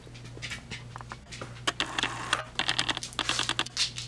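Irregular run of small clicks and crackles, busier in the second half, over a faint steady low hum.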